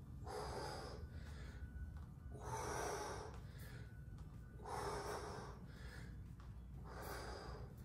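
A man breathing hard while doing squats, with four audible breaths about two seconds apart. A low steady hum runs underneath.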